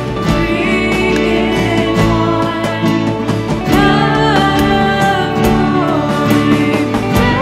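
Contemporary worship band playing a song: two women singing together over electric and acoustic guitars, keyboard and a drum kit keeping a steady beat.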